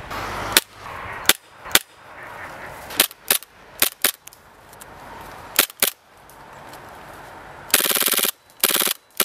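KWA-made B&T MP9 gas blowback airsoft submachine gun firing: about nine single shots spaced irregularly, then two rapid full-auto bursts near the end.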